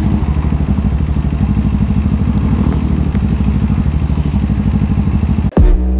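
CFMoto 400NK's parallel-twin engine idling steadily, loud and close. Near the end it cuts off abruptly and electronic music with a heavy beat begins.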